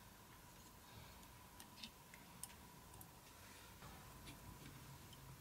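Near silence, with a few faint small clicks and ticks as small parts are handled and fitted into a quadcopter's carbon-fibre and plastic frame, over a faint steady high tone.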